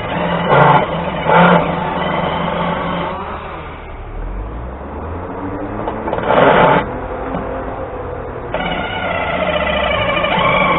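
Several chainsaws running and revving in the distance, their pitch wavering up and down without pause. Three short, louder bursts stand out: about half a second in, at about a second and a half, and between six and seven seconds.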